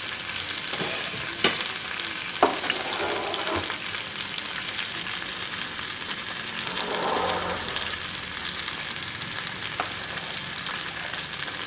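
Chicken pieces sizzling in oil on a non-stick tawa, a steady frying hiss, with a few sharp knocks of a utensil on the pan, the loudest two in the first few seconds.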